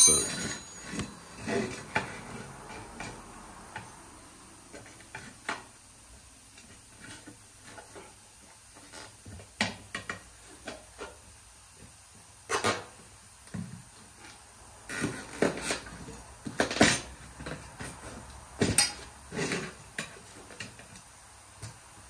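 Small metal tire irons clinking and scraping against a lawn mower's metal wheel rim while prying the tire bead off: scattered, irregular clicks and knocks, with a few louder clanks in the second half.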